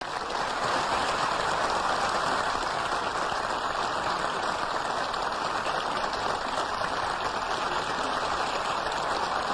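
Steady, unchanging static hiss of recording noise, with no speech or music over it.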